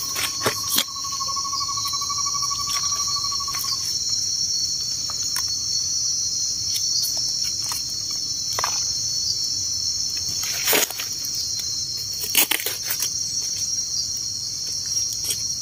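A steady, high-pitched insect chorus fills the forest air, with a single held whistle-like tone over it for the first four seconds or so. Scattered clicks and rustles of leaf litter and soil being handled and dug with a knife break in, loudest about eleven and twelve and a half seconds in.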